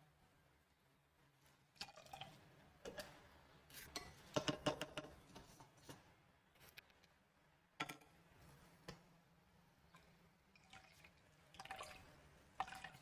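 Quiet kitchen sounds: liquid dripping into a container, with scattered light clinks and clatters of glass and utensils, busiest about four to five seconds in.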